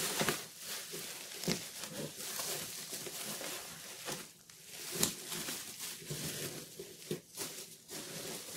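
Plastic bubble wrap rustling and crinkling as hands pull and fold it inside a cardboard box, with a few sharper crackles.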